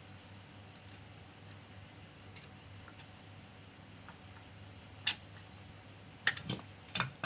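Small metal clicks and taps of nuts and a tool as they are fastened back onto a sewing machine's clutch motor: faint scattered ticks, one sharper click about five seconds in, and several more near the end.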